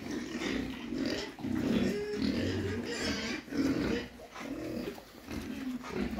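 A group of young domestic pigs grunting, short low grunts overlapping irregularly with the odd brief squeal.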